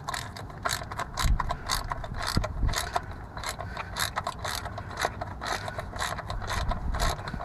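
Ratchet wrench clicking in quick, uneven runs as the oil pan drain plug is tightened back in.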